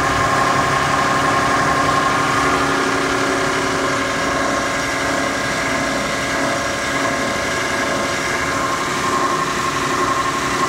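Two-in-one plastic film shredder-granulator running steadily: a continuous machine drone with a high, steady whine in it.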